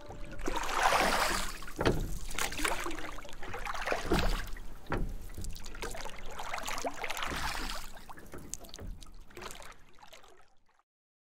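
Water splashing and lapping around a wooden canoe on a lake, irregular and surging, with a few sharper knocks. It fades out and stops shortly before the end.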